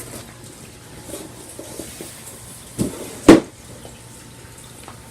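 A cardboard box and its packaging being handled during unpacking: light rustling, then two knocks about half a second apart near the middle, the second sharp and the loudest.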